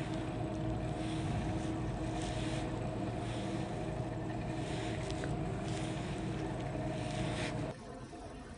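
Exercise bike running under steady pedalling: a steady mechanical hum with a soft whoosh about once a second, dropping to a quieter hum near the end.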